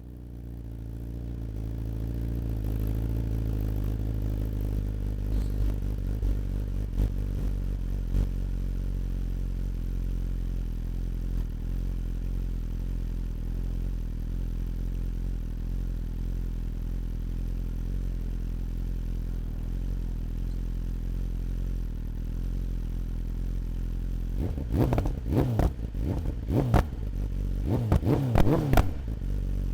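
BMW inline-four sport bike engine idling steadily, then revved in several quick throttle blips over the last few seconds.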